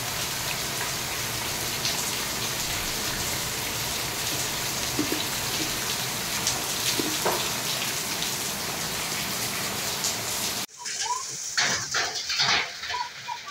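Heavy rain mixed with hail pouring down in a dense, steady hiss. About ten and a half seconds in, it cuts abruptly to a closer, sparser patter of separate sharp taps as drops and hailstones strike a hard, wet surface.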